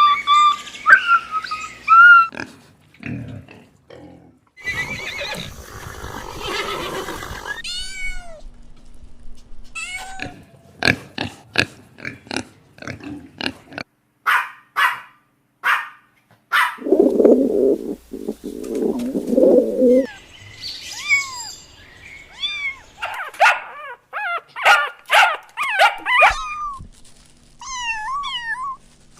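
A string of different animal calls, one after another: high chirps and short sharp cries, with a low, rough stretch of calling in the middle.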